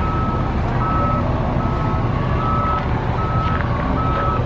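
A vehicle's back-up alarm beeping steadily on one pitch, a little faster than once a second, over a low steady rumble.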